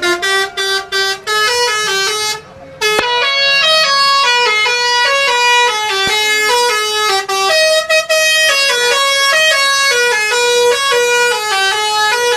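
Indonesian 'telolet' bus air horn playing a tune of several tones: a few short toots, a brief break, then a long run of notes stepping up and down several times a second.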